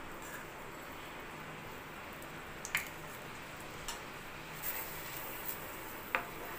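Thick condensed milk being scraped into melted butter in a pan and then stirred with a wooden spatula, over a steady low hiss, with a few light clicks of the utensils against the pan.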